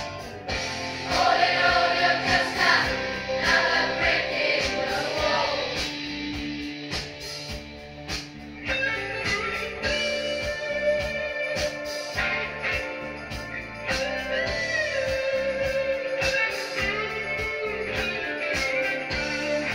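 A song with singing and guitar played back from a cassette tape on a Kenwood stereo cassette deck.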